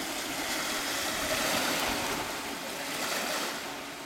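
Low, steady engine drone under a rushing hiss that swells and then eases near the end.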